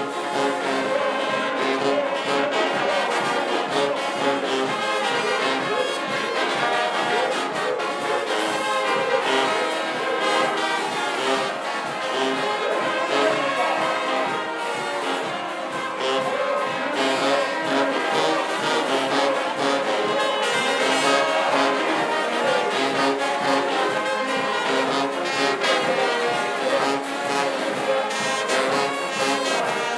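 Brass band music with trombones and trumpets, playing on without a break.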